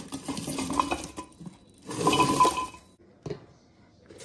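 Dishwasher detergent pods poured from a plastic bag into a glass jar, rattling and clinking against the glass in two spells. A single short tap follows about three seconds in.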